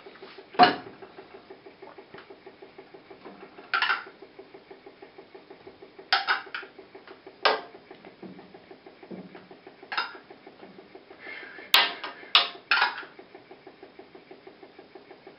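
A metal spoon clinking and scraping against a metal oven tray as eggplant slices are turned: about eight short sharp knocks spaced a second or two apart, the loudest just after the start and a cluster near the end. A steady low pulsing hum runs underneath.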